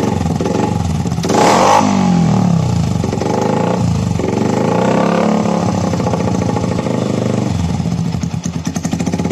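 Yamaha Vixion 150 single-cylinder four-stroke engine revved through a car exhaust muffler held onto the header pipe by hand, with no clamp. There is a sharp blip about a second in, then several slower rises and falls in revs, and it settles back to a pulsing idle near the end.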